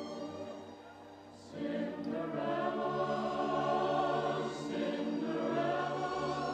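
Choral music: a choir singing long held chords that dip quieter about a second in, then swell back up and stay full.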